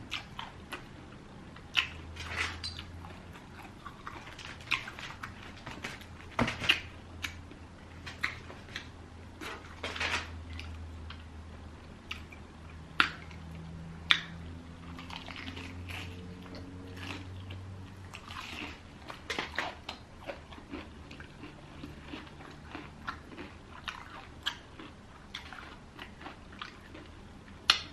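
A person biting and chewing crispy fried chicken close to the microphone, with irregular crunches of the breading and wet chewing in between.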